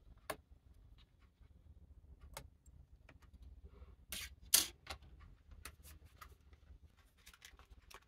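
Scattered light clicks and taps of a laptop's thin metal RAM shield being pulled up off its tabs and handled, with the loudest click about halfway through.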